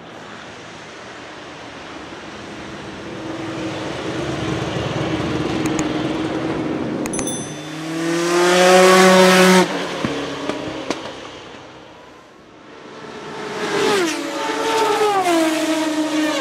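Lola T92/10's 3.5-litre naturally aspirated Judd GV10 V10 running under power as the car climbs towards the microphone. It is loudest for about two seconds as it passes close by, then cuts off abruptly and fades. Near the end, after a lull, a different set of tones rises and then falls in pitch in steps.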